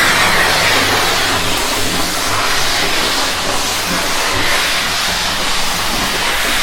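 Steam cleaner hissing: a continuous jet of steam, loud and steady, with a faint low hum from the unit underneath.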